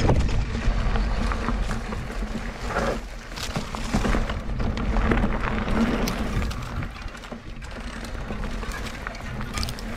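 Mountain bike descending a rough trail: wind rumbling over the helmet-mounted microphone, tyres rolling over dirt and stones, and scattered clicks and rattles from the bike's chain and frame over bumps.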